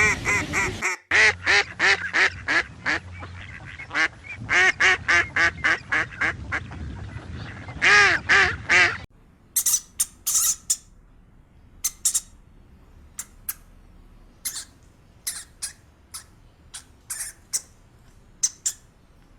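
Ducks quacking in quick runs of loud calls. About nine seconds in, this cuts to sparse, short, high-pitched squeaks from a small animal.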